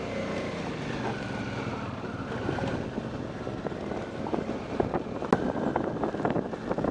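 Motorcycle running along a gravel track, with wind buffeting the helmet microphone. Tyres crunch over loose stones, and short knocks and clatters of gravel grow busier from the middle on.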